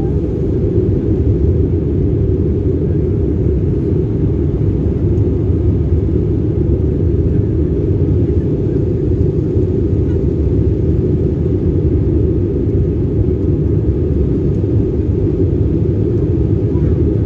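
Jet airliner cabin noise in flight: a steady, loud low rumble of engines and rushing air, heard from inside the cabin at a window seat.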